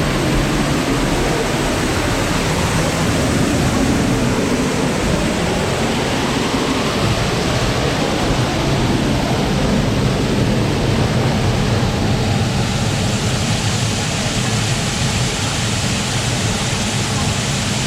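Grotto Falls, a waterfall, rushing steadily and loudly at close range; the hiss turns brighter about two-thirds of the way in.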